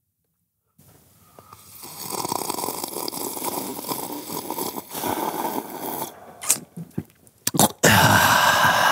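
Close-miked ASMR mouth noises: a man sips water and slurps and gurgles it in his mouth right up against the microphone. It starts about a second in and builds, breaks into a couple of short sharp smacks, and ends with the loudest burst of gurgling near the end.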